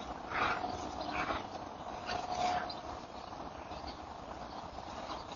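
Two dogs heard faintly through a doorbell camera's microphone, with two short sharp cries about half a second and a second in, and a thin high whine about two seconds in.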